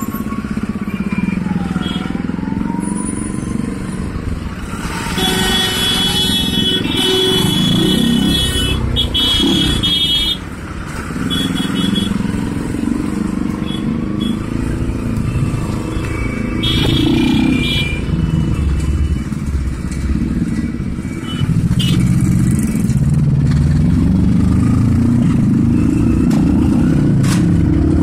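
Road traffic: motor vehicle engines running, their pitch rising and falling, with a few brief high tones over them and the engine sound growing louder about three-quarters of the way through.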